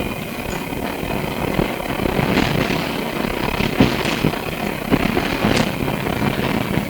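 Interior noise of a Melbourne SW5-class tram: a steady mechanical rumble with rattles and several sharp knocks, and a faint high whine in the first couple of seconds.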